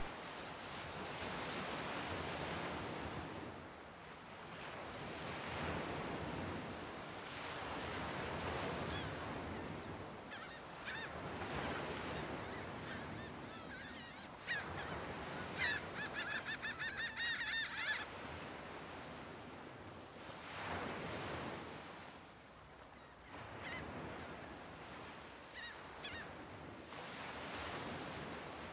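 Sea waves washing ashore, the surf rising and falling every few seconds. A run of squawking bird calls, gull-like, comes about fifteen seconds in, with a few single calls later.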